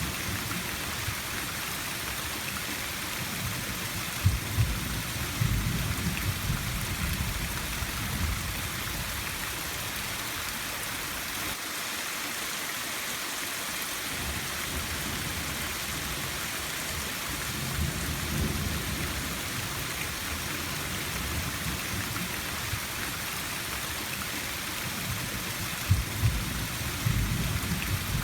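Steady rain falling, a constant hiss, with low rumbles of thunder rolling in three times: about four seconds in, midway, and near the end.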